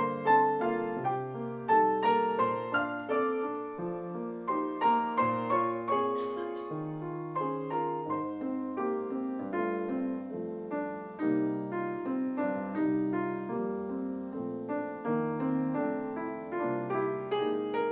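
Grand piano played four hands as a duet, with a steady stream of notes over bass notes that change about once a second.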